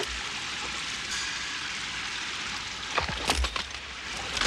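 Steady hissing background, then a few sharp metallic clicks and knocks about three seconds in and another near the end, from a pump-action shotgun being handled.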